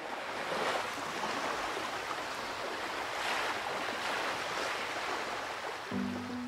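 Sea waves washing, a steady rush that swells and eases every second or two. About six seconds in, a held low chord of music comes in.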